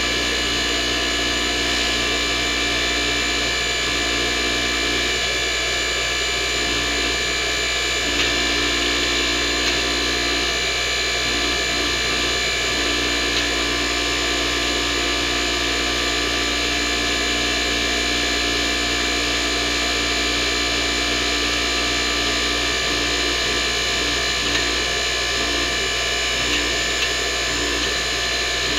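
Powered hydraulic pump running steadily, a constant mechanical whine of several steady tones, driving the press ram down to push a one-pass broach into a bored steel block.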